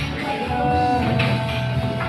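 Background music led by guitar, over low bass notes.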